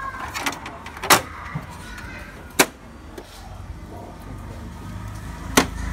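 Plastic covers of an HP Color LaserJet Pro MFP M177fw colour laser printer being shut by hand: three sharp clacks spread over a few seconds, over a low steady hum.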